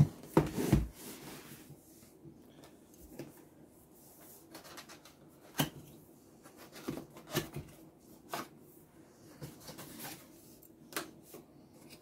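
Cardboard box being opened by hand and its packaging handled: scattered light taps and scrapes with rustling, and a sharper knock now and then.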